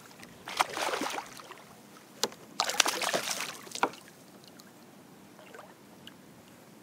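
Hooked redfish splashing at the surface beside a kayak as it is hand-landed without a net, in two bursts of about a second each with sharp slaps of water, then quieter lapping.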